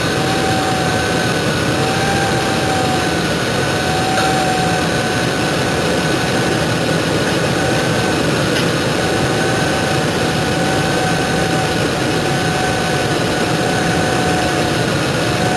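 Ford 5.4-litre Triton V8 idling steadily, with a steady high-pitched whine running over the engine sound.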